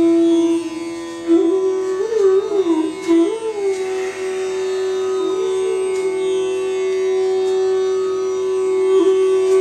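Background music: a melody of long held notes that slide and bend in pitch, over a steady drone.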